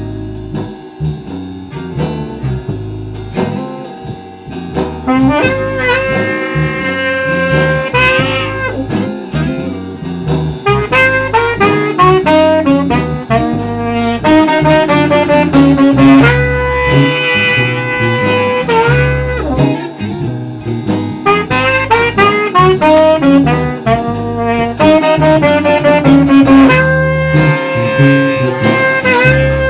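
Saxophone playing a bluesy jazz melody live over an electric bass guitar line. The saxophone holds long notes, some bending in pitch, while the bass plucks steadily underneath.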